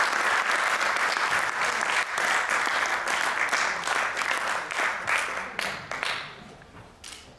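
Audience applauding; the applause dies away about six seconds in, leaving a few last scattered claps.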